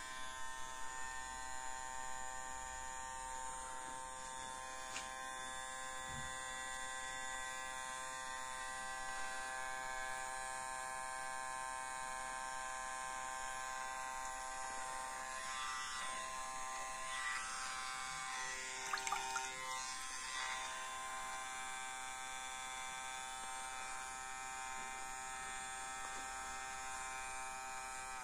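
Small DC motor in a homemade aerosol-can jet ski model running steadily at an even pitch, with a few brief extra noises about two-thirds of the way through.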